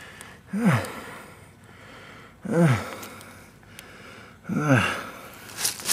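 A man grunts three times, each a short low groan dropping in pitch, about two seconds apart, in pain after slipping on ice.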